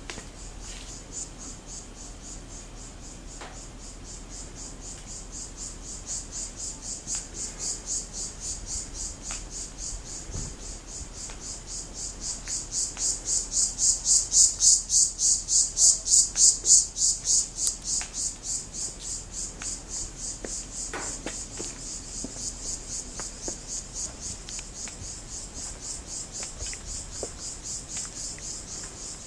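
Insects calling outdoors in a high, rapidly pulsing buzz, about three pulses a second, swelling louder in the middle and easing back towards the end.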